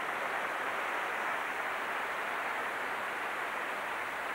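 Tennis crowd applauding at the end of a rally: many people clapping together in a steady, dense patter.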